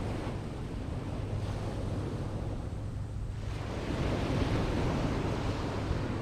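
Sea waves washing onto a shingle beach, swelling up about four seconds in, with wind rumbling on the microphone.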